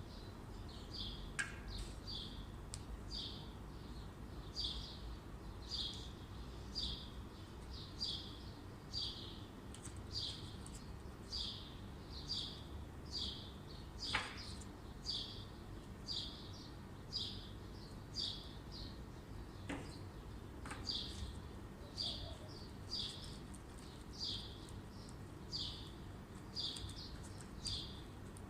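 A bird chirping over and over, short high chirps about twice a second without a break, with a few quick falling whistle calls, the loudest about halfway through.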